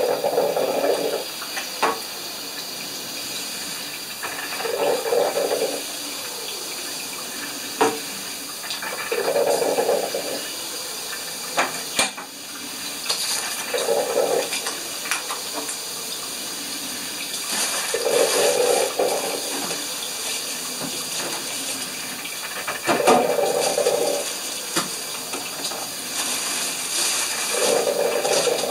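Drip coffee maker brewing: a watery gurgle about every four to five seconds as hot water spurts up through the heater. Sharp clicks and knocks of kitchenware come in between.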